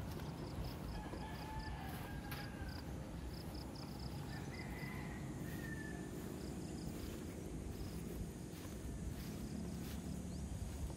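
Rural outdoor ambience: an insect chirping in a steady rhythm of short, high chirps, a few a second, thinning out in the second half. Two brief bird whistles come in the first half, over a low steady rumble.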